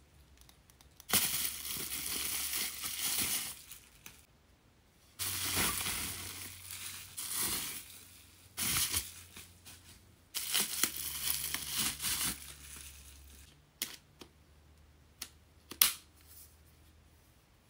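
Plastic packaging crinkling and rustling in several bouts as it is handled, then a few sharp plastic clicks near the end as a curling wand's barrel is fitted onto its handle.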